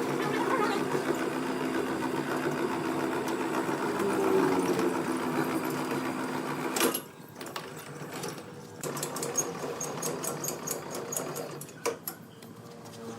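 Woodworking machinery running with a steady mechanical hum that cuts off abruptly about seven seconds in. A quieter stretch of rapid, repeated machine clicking follows.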